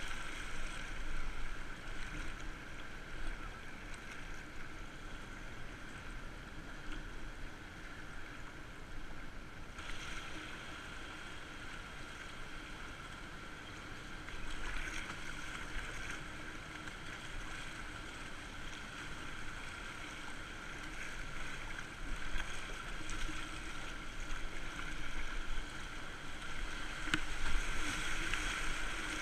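Fast, high river water rushing and splashing around a whitewater kayak, with the paddle strokes churning the water, picked up by a GoPro on the boat. The splashing grows louder near the end as the bow plunges through waves.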